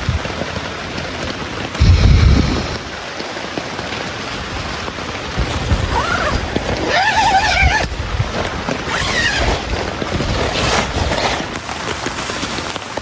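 Heavy rain falling steadily. There is a short low thump about two seconds in, and a wavering, pitched sound around the middle, heard twice.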